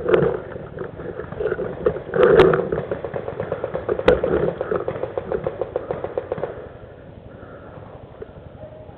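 Paintball marker firing a rapid string of shots, many pops a second, with a couple of louder cracks among them. The firing stops about six and a half seconds in.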